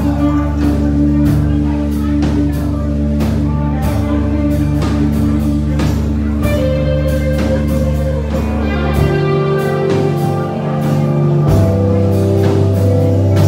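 Live band playing a rock song, with electric guitar, bass and a drum kit beating steadily. The low bass notes drop out about nine seconds in and come back a couple of seconds later.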